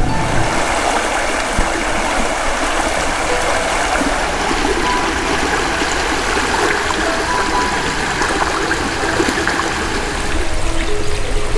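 Running water, a steady rushing like a stream or brook flowing.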